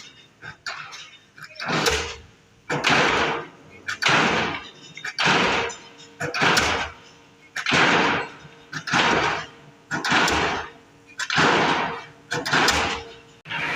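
Pile-driving hammer striking a steel pipe pile in a steady rhythm, about one blow every 1.2 seconds, each strike ringing out and fading over about a second.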